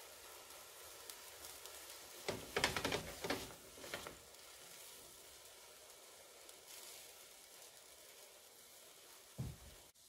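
Banana-and-egg pancake sizzling faintly in butter in a ceramic nonstick frying pan. A silicone spatula scrapes and knocks against the pan for a couple of seconds, about a quarter of the way in. There is a short low thump near the end.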